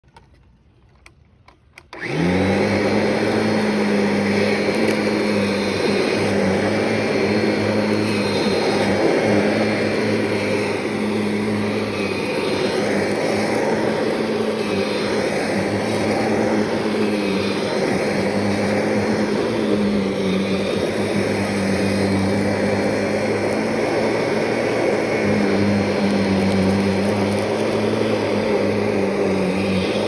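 Kirby G5 upright vacuum cleaner switched on about two seconds in, its motor spinning up quickly and then running steadily while it is pushed over a shag rug.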